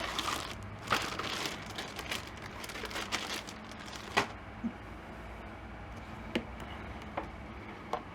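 Hands handling the plastic parts of a welding helmet while fitting a battery: a handful of separate sharp clicks and knocks over light rustling, the loudest about halfway through.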